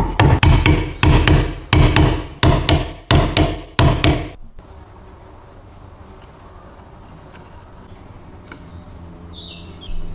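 Rapid, evenly spaced metal strikes, about three a second, each ringing briefly. They stop about four seconds in, leaving only a faint steady background.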